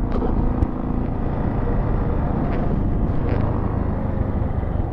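Dual-sport motorcycle engine running steadily at cruising speed, with low wind and road rumble and a few faint ticks.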